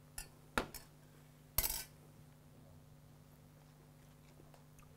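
A few light clinks of a metal utensil against dishes, about four in the first two seconds, the last one the loudest; after that only a faint steady hum.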